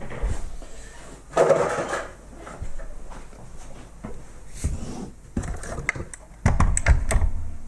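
Plastic parts of a dismantled robot vacuum being moved aside and set down by hand: a rustle about a second and a half in, then scattered knocks and clatters, loudest near the end.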